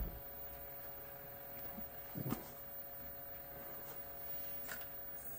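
Sony SL-HF100 Betamax video head drum motor running with a steady hum, struggling and dragging down: the owner suspects a replacement capacitor he fitted isn't good. A few short knocks come at the start, about two seconds in and near the end.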